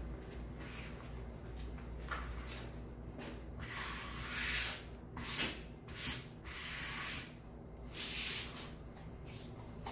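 Wired ribbon pieces and deco mesh rustling and rubbing as they are handled and slid across a cutting mat, in several short rustles, most of them in the second half.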